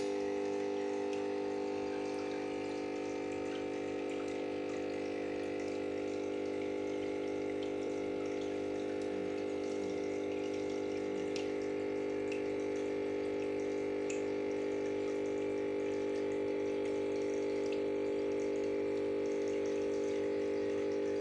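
Small electric aquarium water pump running with a steady hum, with water trickling and splashing around it.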